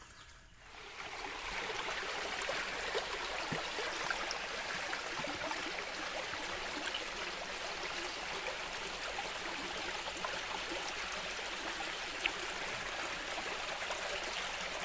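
Water of a small river flowing and gurgling steadily, coming in about a second in. A single sharp tick sounds near the end.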